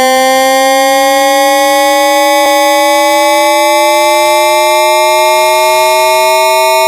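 AM radio sound effect: several loud whistling tones held together and slowly rising in pitch, with a brief click about two and a half seconds in.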